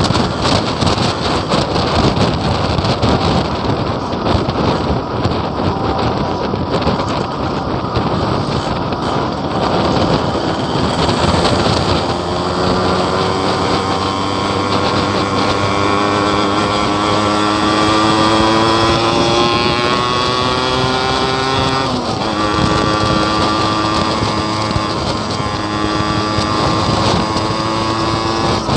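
Yamaha RX King's two-stroke single-cylinder engine running under way, with heavy wind rush on the microphone. Partway through, the engine note climbs slowly for about ten seconds, drops sharply as at a gear change, then holds steady.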